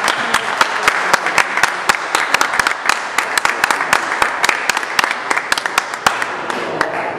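A small audience applauding, with many distinct hand claps that die down at the very end.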